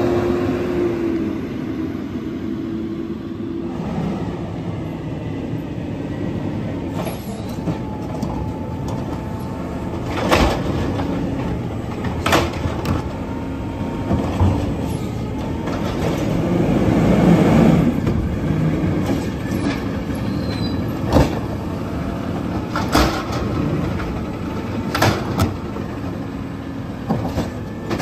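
Autocar automated side-loader garbage truck's engine running as the truck rolls slowly up to the curb. The engine noise swells about two-thirds of the way through, and several sharp clanks come from the truck.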